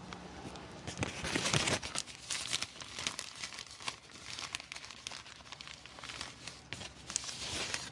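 Crinkling and rustling, with many quick crackling clicks, busiest in the first two seconds and again near the end.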